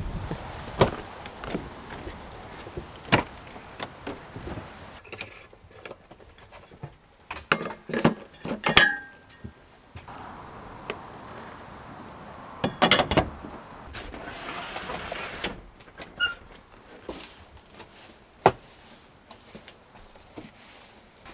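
Knocks, clicks and rustling as things are moved and handled inside a camper van, with a brief squeal about nine seconds in.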